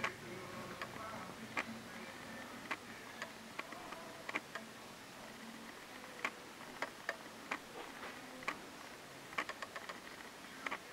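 Footsteps on wooden floorboards: sharp, irregular clicks and taps, about one or two a second, some coming in quick clusters.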